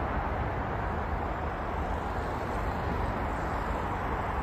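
Steady hum of city road traffic: many cars on a multi-lane road blending into one continuous rush, with no single vehicle standing out.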